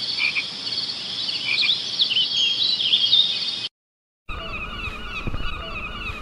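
A flock of birds calling, with many short high chirping calls that stop abruptly about three and a half seconds in. After a brief silence, a different run of lower, repeating wavering calls follows, with a few low knocks.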